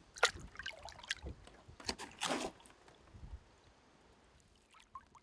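Water splashing beside a boat as a musky is released by hand and swims off: a few short splashes in the first half, then softer lapping.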